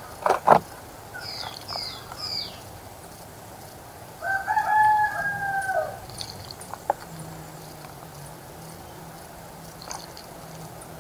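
A rooster crows once, a long call of nearly two seconds, starting about four seconds in. Before it come two sharp knocks and a few short, high, falling bird chirps.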